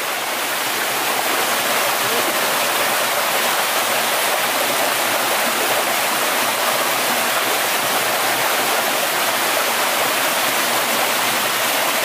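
Shallow rocky forest stream running over stones: a steady rushing of water that swells a little over the first second and then holds even.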